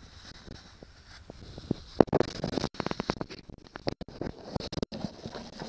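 Wire-mesh minnow trap being handled among dry leaves: rapid crackling and clattering that thickens about two seconds in and keeps going in uneven bursts.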